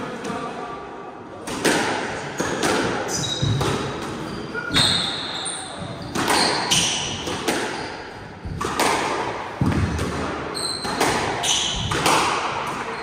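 Squash rally: the ball hit again and again off rackets and walls, sharp echoing impacts every half-second to a second starting about a second and a half in, with short high shoe squeaks on the wooden court floor.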